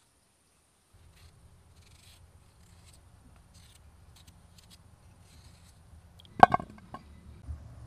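Small knife peeling a raw potato, with faint short scraping strokes of the blade on the skin. About six and a half seconds in, a loud knock and a couple of smaller ones as a peeled potato goes into the enamel bowl.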